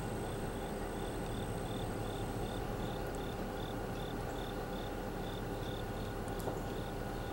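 Cricket chirping steadily at about three short, high chirps a second, over the low, steady rumble of diesel locomotives moving slowly.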